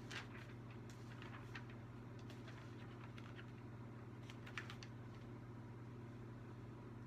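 Faint handling noises: a few soft clicks and rustles in short clusters over the first five seconds, over a steady low electrical hum.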